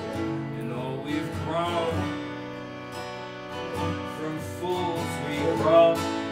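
Live acoustic folk band: a man singing over a strummed Gibson J-45 acoustic guitar, with a keyboard holding sustained chords and a banjo picking underneath.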